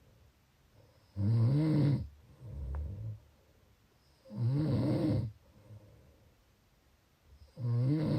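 A sleeping person snoring: three loud, pitched snores about three seconds apart, the first followed by a softer breath.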